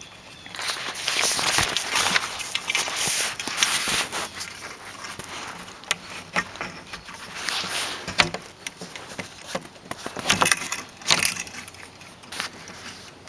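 Irregular rustling and crackling with scattered sharp clicks, as hands work a wire yoke, cord and sail rigging around an aluminium mast.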